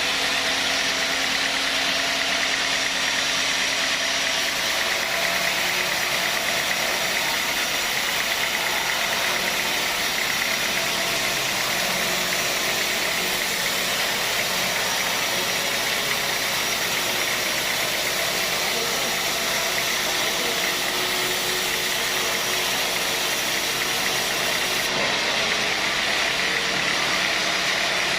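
Sawmill saw machinery running steadily, a continuous mechanical hum with a strong hiss and no break.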